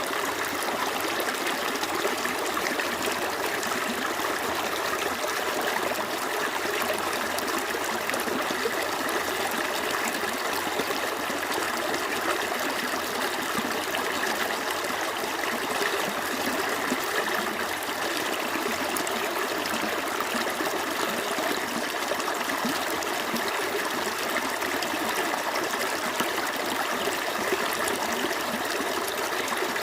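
Small stream flowing over rocks: a steady, unbroken babble of running water.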